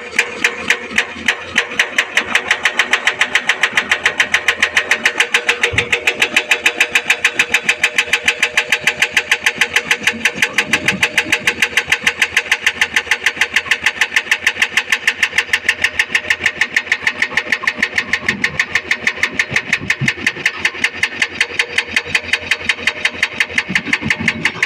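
Heavy diesel engine of earthmoving machinery running with a rapid, even clatter of about four to five beats a second over a steady hum.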